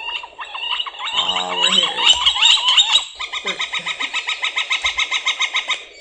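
Recorded northern flicker calls: a jumble of varied calls, then from about three seconds in the long, fast, evenly repeated call at about nine notes a second.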